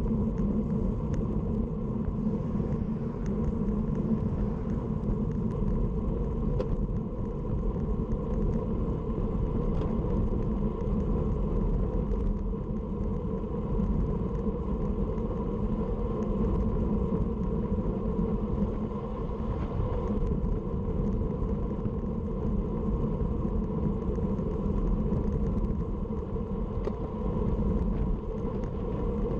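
Steady low wind noise on the microphone of a handlebar-mounted camera on a road bike riding at about 30 to 40 km/h, mixed with the tyres' road noise.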